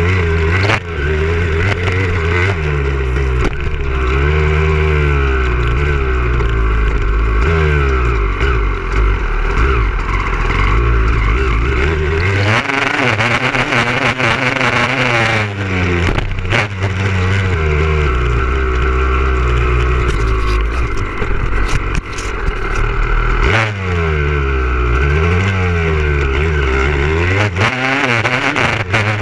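Motocross bike engine heard from an on-board camera, its pitch climbing and dropping over and over with throttle and gear changes. About halfway through the low note falls away for a few seconds under a higher, noisier sound.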